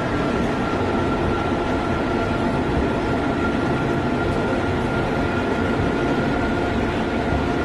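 Indian Railways WAP-7 electric locomotive running, heard from inside the cab: a steady rumble with a thin steady high tone over it.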